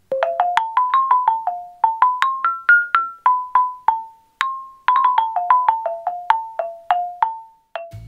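Xylophone, its wooden bars struck with mallets, playing a quick tune of short single notes at about four a second. The tune climbs in pitch and comes back down, with a short break about four seconds in.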